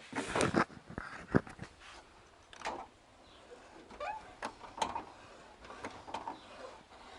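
Irregular knocks and clunks, several close together at the start and the loudest about a second and a half in, with a few short squeaks between later knocks.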